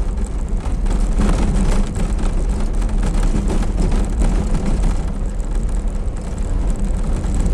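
Izh-2717 van driving, heard from inside the cab: a steady engine and road drone with many small, irregular rattles and knocks from the body. The driver cannot place the rattling and squeaking; he suspects the van's box or a brake pad.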